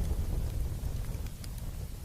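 Campfire burning, with a few sharp crackles over a low rumble like wind on the microphone. The whole sound fades down steadily toward the end.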